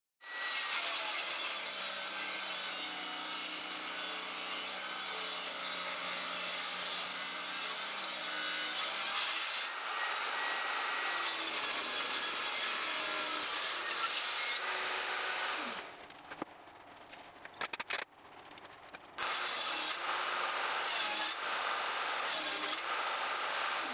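Wood being sawn: a steady, continuous rasping cut with no stroke rhythm. It breaks off briefly near 10 s, goes almost quiet with a few clicks from about 16 to 19 seconds, then resumes.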